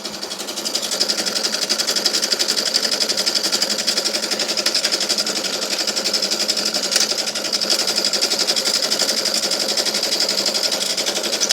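A machine running with a fast, even rattle that builds up in the first second and then holds steady.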